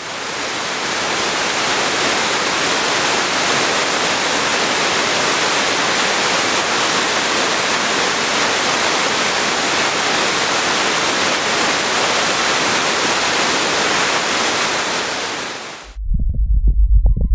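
Waterfall rushing steadily: a dense, even sound of falling water. Near the end it cuts off abruptly and music with a low throbbing pulse begins.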